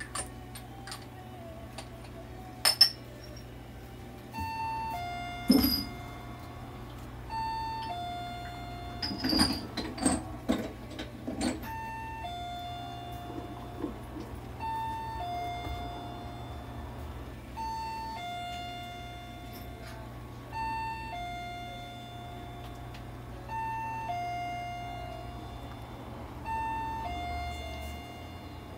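An electronic two-note chime, a short higher note followed by a longer lower one, repeats about every three seconds over a steady low hum from the running nebulizer. A few sharp knocks and clatters stand out as the loudest sounds, around three, five and ten seconds in.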